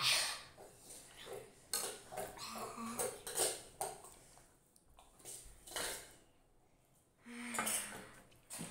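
Spoons clinking and scraping on plates and a stainless steel tumbler knocking on a glass tabletop, in an irregular clatter. A couple of short vocal sounds come from children reacting to spicy noodles, about two and a half seconds in and again near the end.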